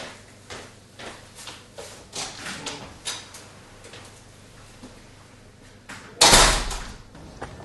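Footsteps across a wooden floor, then the flat's front door is pulled shut with a loud slam about six seconds in.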